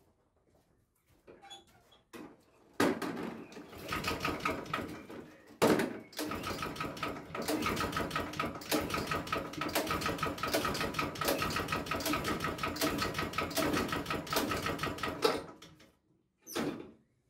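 Honda walk-behind lawn mower's small single-cylinder four-stroke engine catches about three seconds in and runs with a fast rattling beat. It cuts out a couple of seconds before the end, and a short burst follows.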